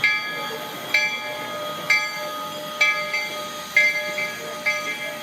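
Train bell ringing steadily, struck about once a second, six rings in all, each ring sharp and then fading slowly.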